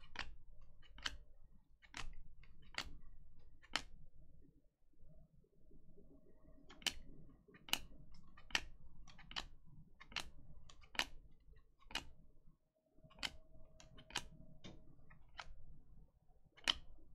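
Chrome trading cards clicking one at a time as they are flipped through a stack by hand, about one click a second, with a pause of a few seconds from about four seconds in.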